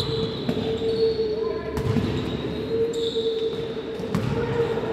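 Indoor ball game in a sports hall: the ball thudding on the court several times, short high squeaks and voices calling, over a steady hum.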